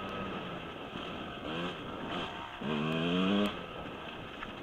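Husqvarna 125 dirt bike engine under a rider's throttle, revving up in short bursts. There is a brief blip about a second and a half in, then a longer rev that climbs in pitch and is chopped off about a second later. Between the bursts the engine runs lower over a steady rush of wind and trail noise.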